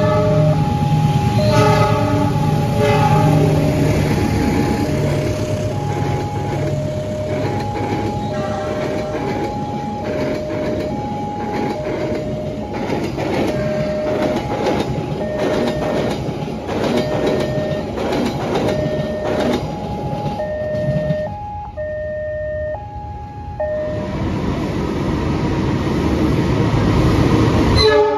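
A railway level-crossing alarm chimes two alternating tones over and over while a diesel locomotive and its passenger coaches pass close by. The engine hum comes first, then the wheels clatter over the rail joints. After a cut, near the end, a diesel locomotive rumbles louder as it pulls into a station.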